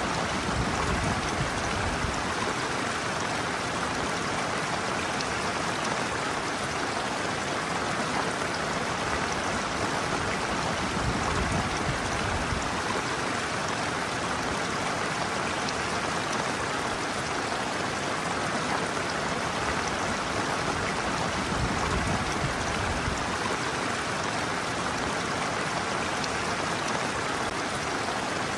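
Shallow stream water running steadily over a sloping bed, with an even rushing splash. Low rumbles come and go underneath.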